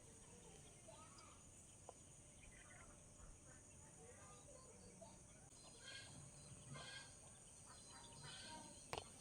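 Faint outdoor ambience: a steady high-pitched insect drone, like crickets, with faint distant voices partway through and a single click near the end.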